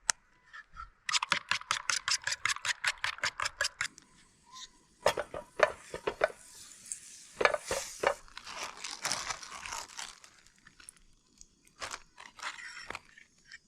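A utensil whisking French toast batter in a bowl: a quick, even clicking of about eight strokes a second for roughly three seconds, then slower, irregular clinks and scraping against the bowl.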